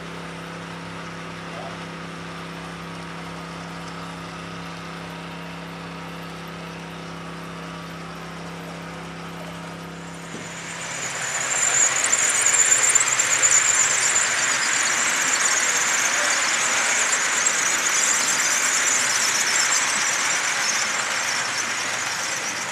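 Model electric train, a pair of locomotives hauling freight wagons, running close by: a loud, high, squealing whir of motors and wheels on the rails that swells up about ten seconds in and carries on. Before it there is only a steady low hum.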